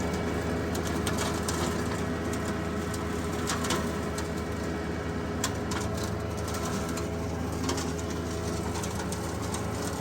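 John Deere 1025R compact tractor's three-cylinder diesel running steadily under load while brush hogging, with many sharp ticks and crackles over the engine hum.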